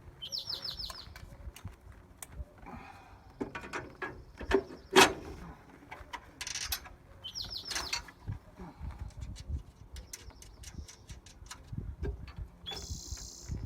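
Hand tools clicking and knocking on metal during reassembly of a car's engine bay, in irregular runs, with one loud clank about five seconds in. Short high chirps come and go.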